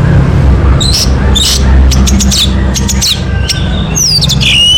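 Orange-headed thrush song: a fast run of high chirps, sharp notes and whistled slurs, rising and falling, over a steady low hum.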